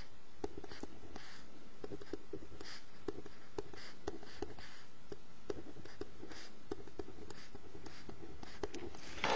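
Handwriting on lined notebook paper: irregular short scratching strokes of a pen or pencil tip as digits are written out, with small pauses between them.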